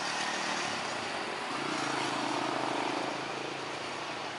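Airbus A320 jet engines running steadily at taxi power, a broad, even rush. Partway through, a nearby truck's engine hum swells over it for a second or two.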